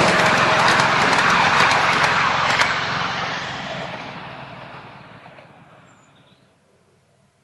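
Miniature railway train passing close by: locomotive and passenger carriages running along the track with a few sharp clicks, fading away over about six seconds as it moves off.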